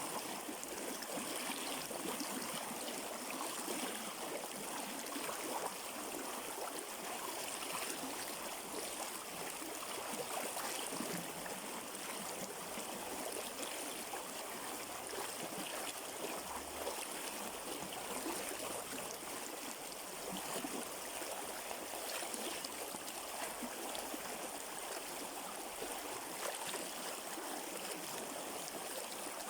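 River water streaming and gurgling over stones: a steady, even rush with small splashes.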